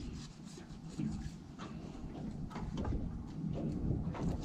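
Knife working a raw fish fillet on a cutting board: a few short scrapes and taps of the blade against the board, over a low steady rumble of wind and water.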